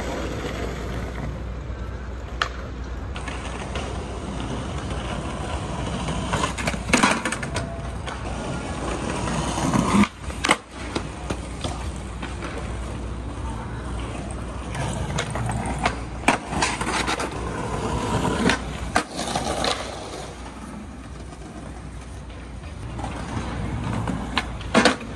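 Skateboards rolling over stone paving with a steady rumble. Several sharp clacks and impacts are spread through it: boards popping, landing and slapping down during tricks.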